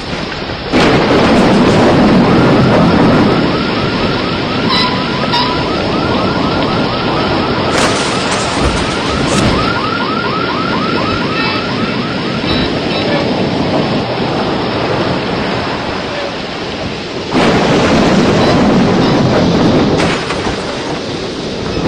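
Storm wind sound effect, a loud steady rush that swells near the start and again about two-thirds of the way through. For several seconds in the middle a fast-repeating chirping tone sounds over it, like a warbling alarm.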